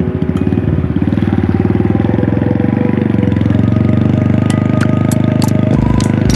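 An engine running steadily with a fast, even pulse, with low thuds near the end.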